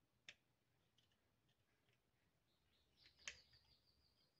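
Mostly near silence, broken by faint clicks of small metal parts being handled and fitted at the presser bar of an industrial sewing machine: a light click a quarter second in and a sharper one about three seconds in. A faint high chirping sounds near the end.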